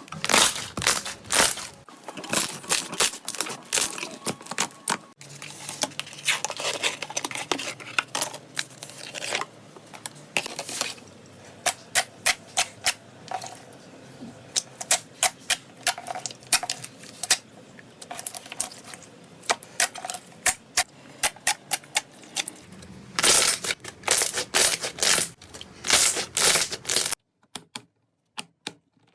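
Slime being squeezed and worked by hand, making crisp clicks and pops. They come in dense runs near the start and near the end, with sparser, separate clicks in between, and the sound changes abruptly twice between clips.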